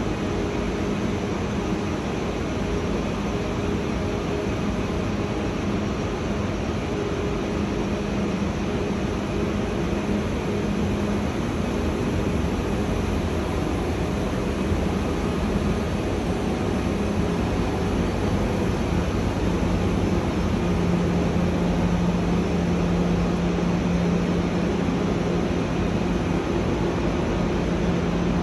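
Double-deck TGV high-speed train in a station hall, a steady rumble with a machine hum; about twenty seconds in the hum grows stronger and slightly lower in pitch.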